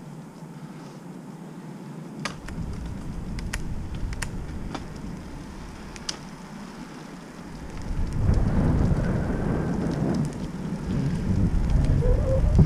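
Wind buffeting and low rumble on the microphone while riding a bicycle, much louder from about eight seconds in. A few sharp clicks come in the first half.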